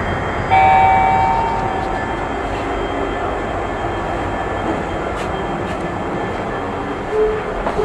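Steady rumble of a busy railway station with trains. About half a second in, a bright chime rings out and fades over about a second.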